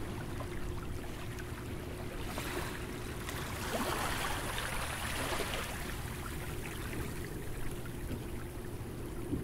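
Small sea waves washing onto the shore: one wash of water swells about two seconds in, is loudest near the middle, then falls away, over a steady low rumble.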